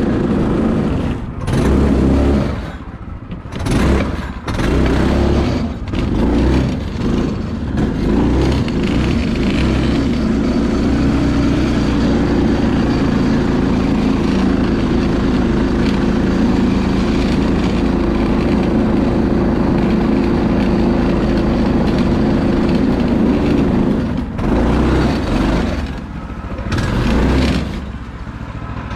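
Yerf Dog 3203 go-kart engine running under way. The revs rise and fall several times at first, hold steady for most of the run, then drop and pick up again near the end.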